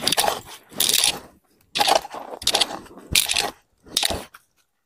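Short-handled hand hoe striking and scraping into dry garden soil in a steady series of about six strokes, roughly one every second, stopping a little over four seconds in.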